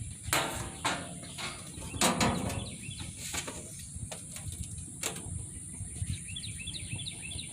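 A few separate knocks and clacks of food and utensils being handled at a gas grill, with small birds chirping near the end.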